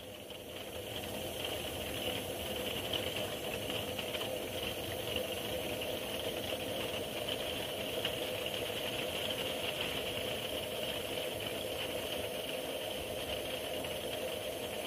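Coleman pressurized liquid-fuel lantern burning with a steady hiss.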